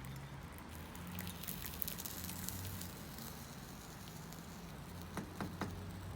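Flame-fired melting furnace running while it heats up: a faint, steady low hum with scattered light crackles and ticks.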